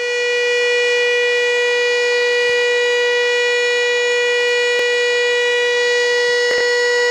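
Fire siren sounding one loud, steady held tone at an unchanging pitch.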